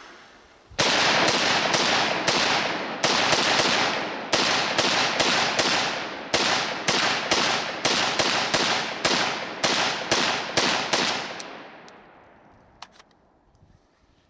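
.300 Blackout AR pistol fired in a rapid string of about two dozen semi-automatic shots, two to three a second with short pauses, each sharp report followed by echo. The firing stops about eleven seconds in and the echo dies away.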